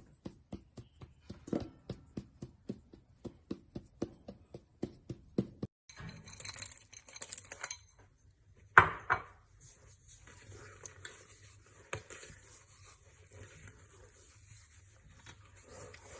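A utensil knocking rhythmically against a glass mixing bowl, about three to four knocks a second, as dough is mixed by hand. After a short break comes kitchen clatter, with one loud clink of dishes about nine seconds in.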